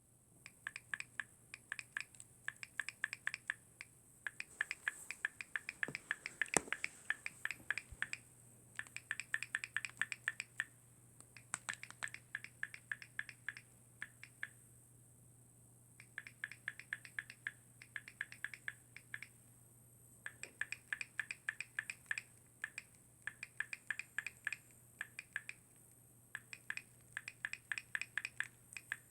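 Water bottle giving off rapid sharp clicks like a switch button being pressed, in runs of about a second with short pauses between them. A single louder knock comes about six and a half seconds in.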